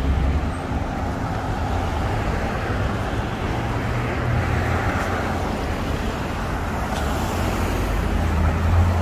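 Street traffic: cars driving past on a town road, a steady rumble of engines and tyres, with one car passing closer about four to five seconds in.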